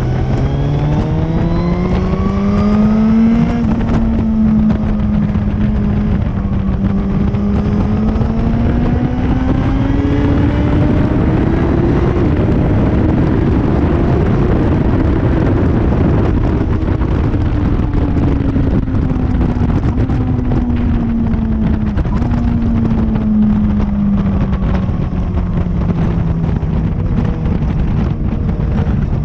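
Motorcycle engine heard onboard while riding on track. The engine note climbs over the first few seconds, rises again to a peak about halfway, then falls away slowly through the second half, over a constant rush of wind noise.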